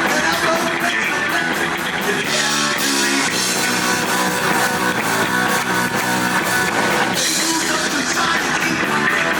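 Heavy metal band playing live: distorted electric guitars and a drum kit, with a fast, steady beat.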